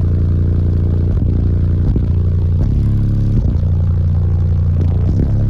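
Two Team EM Audio 18-inch subwoofers in a ported box tuned to 29 Hz, playing deep, loud bass notes of a song with a regular beat, while the car's body clatters and rattles along.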